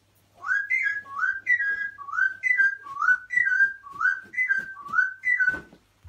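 Pet parrot whistling the same short two-note phrase over and over, about six times. Each phrase is a note gliding up, then a higher note sliding down.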